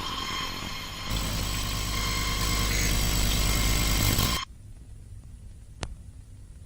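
Harsh static-like noise over a low rumble that gets louder about a second in, then cuts off abruptly to a faint hiss, with a single sharp click shortly after.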